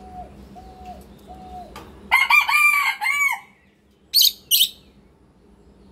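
A rooster crowing once, starting about two seconds in and lasting just over a second in several pitched syllables. It is preceded by faint, evenly spaced short notes and followed by two brief high calls.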